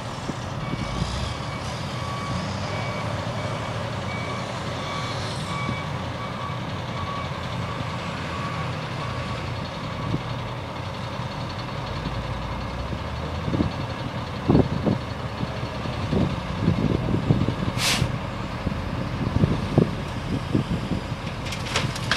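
Diesel engines of a dump truck and a wheel loader running, with a reversing alarm beeping about twice a second for the first few seconds. From a little past halfway, heavy irregular thumps and clunks as the loader works at the truck, with a short sharp hiss about four seconds before the end.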